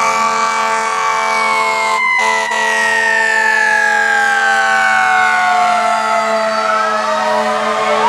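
Fire truck siren on FDNY Rescue 1 winding slowly down in pitch, with a steady lower tone sounding underneath; the siren starts to rise again at the very end.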